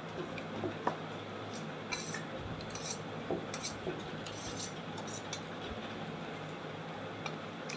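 A metal spoon scraping and clinking against a steel plate of rice several times, over a steady low hum.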